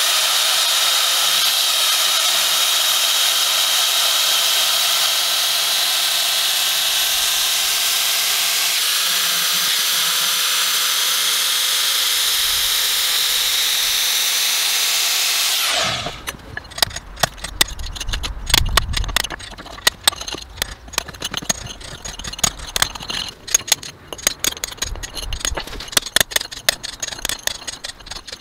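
Angle grinder running steadily as it cuts out the old mortar joint between paving slabs, stopping abruptly about two-thirds of the way through. Then rapid, irregular sharp taps of a hammer on a chisel chipping out old joint mortar.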